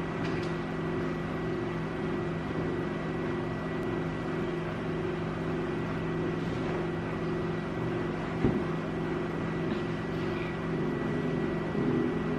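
A steady machine hum with several low tones, one of which pulses about twice a second, over a thin high whine.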